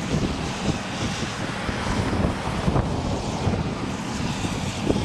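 Wind buffeting the microphone in uneven gusts over a low, steady rumble.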